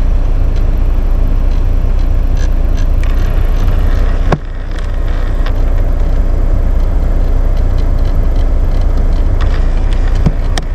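Chevrolet Equinox blend door actuator clicking and knocking at irregular moments as the temperature knob is turned, over the steady low hum of the running vehicle's HVAC. The owner takes the noise for a broken actuator.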